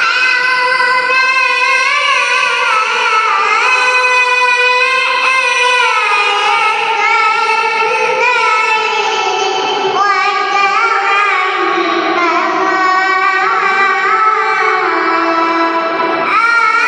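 A young girl reciting the Quran in the melodic tilawah style. It is one long ornamented phrase, the voice holding high notes and bending them up and down. A new phrase starts near the end.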